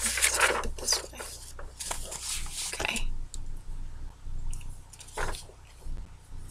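A sheet of paper rustling as it is handled and turned over for about the first three seconds, then quieter, with one more short rustle a little past five seconds, over a steady low electrical hum.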